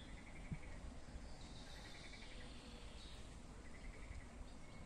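Faint outdoor ambience: a low wind rumble on the microphone, with birds chirping and short high trills repeating every second or two.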